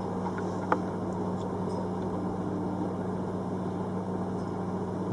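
A steady low mechanical hum, with a single small click about a second in.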